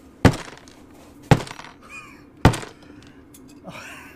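A block of ice with LED work lights frozen inside is banged down onto a worktop three times, about a second apart, in an attempt to crack it open. The ice does not break.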